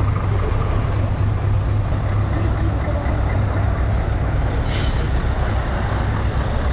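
Scania truck engine running steadily as the tractor unit drives past, a low engine note, with a short hiss about five seconds in.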